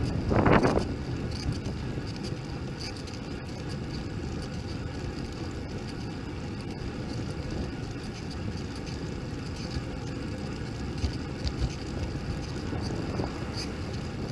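Wind buffeting a bike-mounted camera's microphone while riding: a steady low rumble, with a louder burst in the first second.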